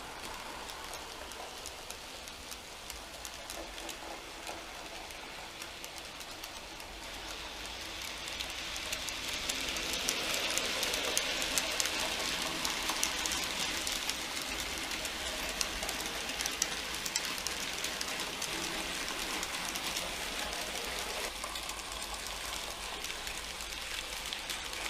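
N gauge model locomotive and wagons running along the track: a fine, rain-like rattle of many small clicks from wheels on the rails. It grows louder about a third of the way through and holds there.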